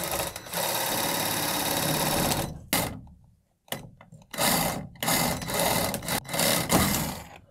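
Cordless one-handed reciprocating saw cutting through PVC pipe. It runs steadily for about two seconds, stops briefly, then cuts in several short start-stop runs until the pipe is through.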